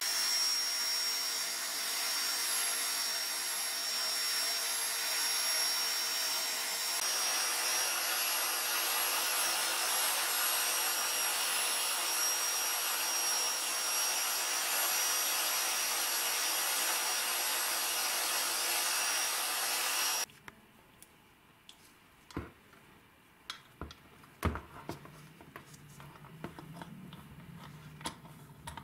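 Bench-mounted motor spinning a brass wire cup brush as small rusty screws are held against it to clean them, a steady hissing scrub with a thin high whine. It stops abruptly about two-thirds of the way through, followed by a few light clicks and knocks of metal parts being handled.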